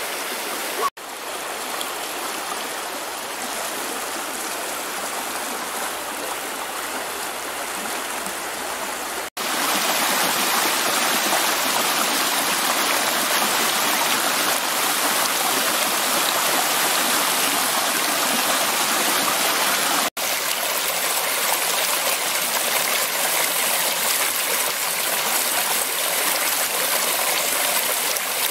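Steady rushing and splashing of a small woodland stream running over rocks and down little cascades. The sound breaks off for an instant about one, nine and twenty seconds in, and is louder and brighter from about nine seconds on.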